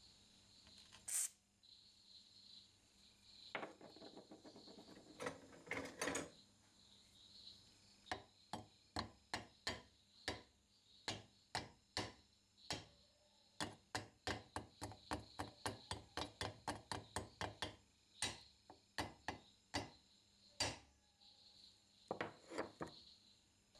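A steel screwdriver tip working at rust on an old cast-iron charcoal iron: a long run of short, sharp scraping and tapping strokes, about three a second, starting about eight seconds in. A brief hiss of rust-release spray comes about a second in.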